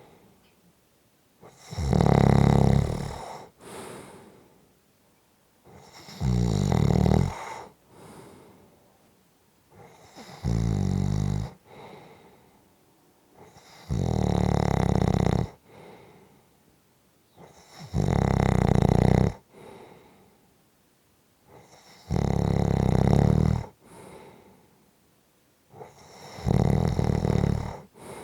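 Steady snoring: seven loud snores, one about every four seconds, each followed by a short, softer breath out.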